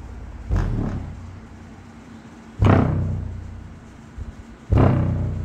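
An NVX 8-inch car-audio subwoofer playing free-air with no enclosure, reproducing deep bass hits from a bass test track: three heavy bass notes about two seconds apart, each hitting suddenly and then fading.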